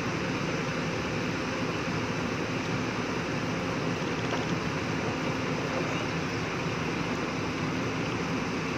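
JCB tracked excavator's diesel engine running steadily at an even pitch while the machine crawls up onto a truck's flatbed.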